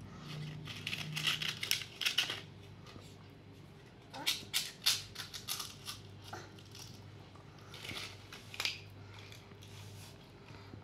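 Dry papad and puffed fryum snacks crackling and snapping as a baby grabs them from a bowl and bites them. The crackles come in three short clusters of sharp clicks, near the start, about halfway and near the end.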